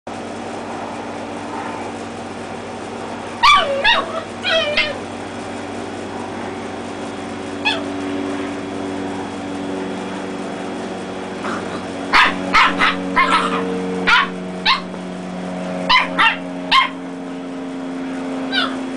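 Dachshund puppies play-fighting: short high-pitched yips, each dropping in pitch, come in quick clusters with gaps between, over a steady low drone.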